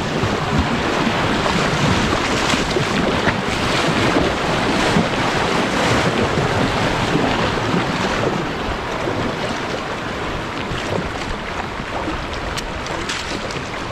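Shallow river riffle rushing and splashing around a kayak as it is paddled through, with water slapping the hull and paddle strokes. The rush eases a little after about eight seconds as the boat runs out into smoother water.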